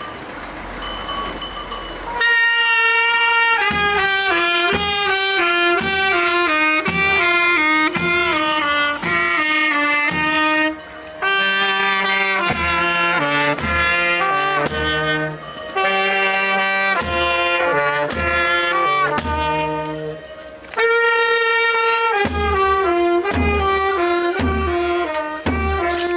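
Street band starting up about two seconds in: saxophone and trumpet play the melody with a bass drum beating under it, with short breaks between phrases.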